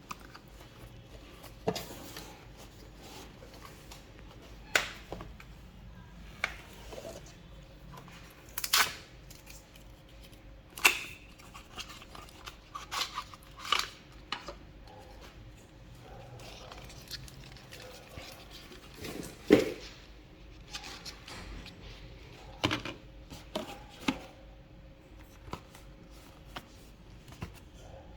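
Cardboard and plastic packaging of a phone bundle being handled and opened: scattered sharp clicks and taps, with soft rustling and tearing between them.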